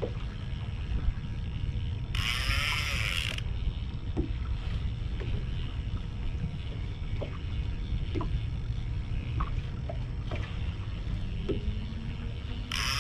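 Steady wind and water noise around a small drifting boat, with two brief high buzzing bursts of about a second each: one about two seconds in and one near the end.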